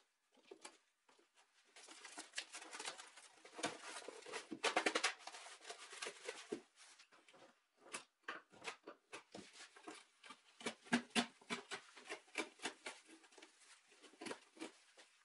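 Old upholstery tacks being pulled and pried out of a wooden chair-back frame with pincers and a tack lifter: a run of irregular sharp metal clicks and scrapes. Near the end, burlap and seaweed stuffing rustle as they are torn away from the plywood.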